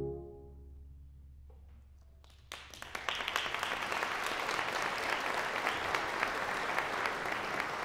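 An audience applauding: after the symphony orchestra's last held chord dies away in the first half-second and a short quiet, clapping breaks out about two and a half seconds in, swells quickly and goes on steadily.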